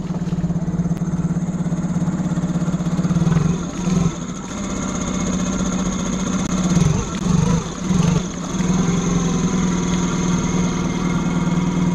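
Brand-new Suzuki outboard motor running with its lower unit in a bucket of water, on its first test run after never having been started. The engine note is steady, with its speed briefly dipping and picking back up about four seconds in and a few times between about seven and eight seconds.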